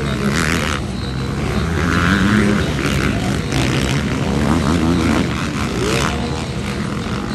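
Several supercross dirt bikes racing around the track, their engines revving up and falling off again and again as the riders open and close the throttle.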